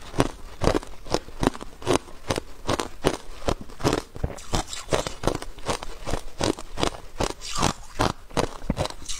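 Hard clear ice being crunched and chewed close to a clip-on microphone: a steady run of sharp crunches, about three a second.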